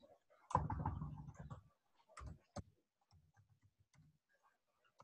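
Faint clicking of a computer keyboard as a short word is typed, then two more single clicks a little past two seconds in.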